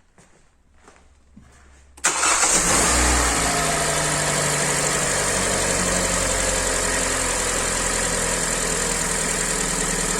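Rebuilt Hyundai i40 engine starting about two seconds in, on its first start after new cylinder liners and pistons, then idling steadily. It runs evenly with no piston knock.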